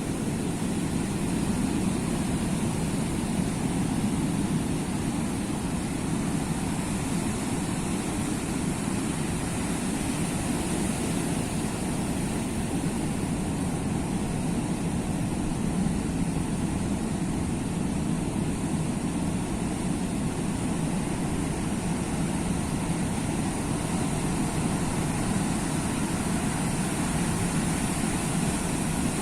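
Sea surf: a steady, low wash of waves with no single break standing out.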